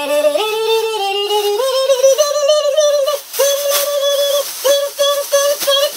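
A high voice singing a wordless melody in long held notes, climbing in steps over the first two seconds and then holding one pitch with short breaks.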